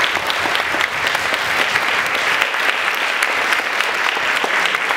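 Audience applauding: steady clapping from many hands, kept up without a break.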